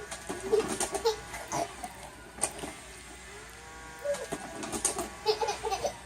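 A baby laughing in short bursts, broken by sharp hiccups.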